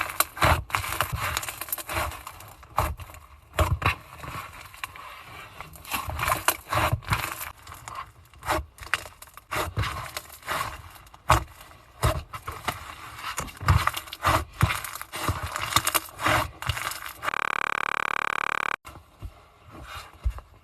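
Slime being squeezed and pressed by hand, giving irregular crackles, pops and sticky scraping sounds. About three-quarters of the way through, a steady hum cuts in for about a second and a half and stops suddenly, followed by a few fainter crackles.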